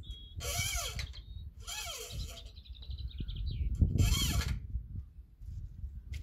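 A bird calls three times in harsh, arching notes, a second or so apart, while a smaller bird trills and whistles high between the first two calls. A low rumble runs underneath.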